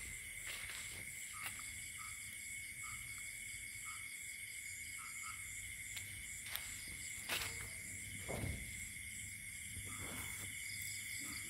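Night-time insect chorus: a steady high trill with a faster shimmering layer above it, and short faint chirps repeating about twice a second for the first few seconds. A few sharp clicks and a soft low thump come around seven to eight seconds in.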